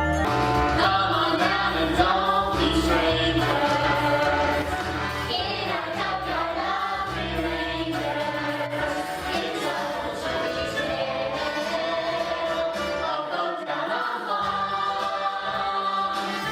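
A young cast singing together in chorus, several voices at once, over an instrumental backing track; the low accompaniment thins out about halfway through.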